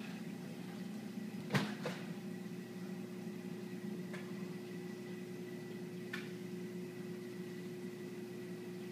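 Steady hum of running reef-aquarium equipment such as pumps, with a few short clicks, the loudest about one and a half seconds in.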